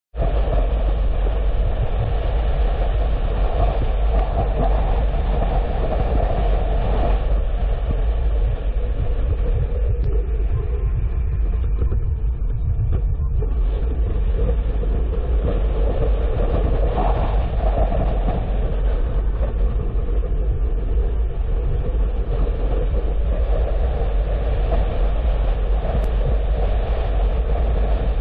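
Car driving along a road: steady rumble of tyres and engine with a deep low drone.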